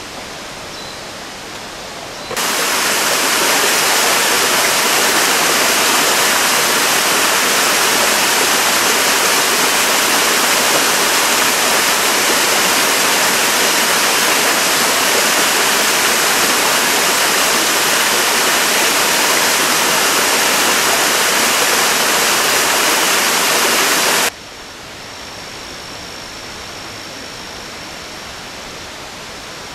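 Small waterfall spilling down a fern-covered rock face: a loud, steady rush of falling water that cuts in suddenly about two seconds in and cuts off about five seconds before the end. Around it is a quieter steady hiss, with a faint thin high tone near the end.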